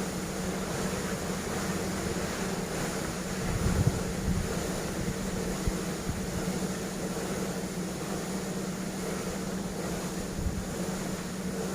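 Steady mechanical hum from a nearby plastic factory, with wind on the microphone; a few low thumps, about four and six seconds in and near the end.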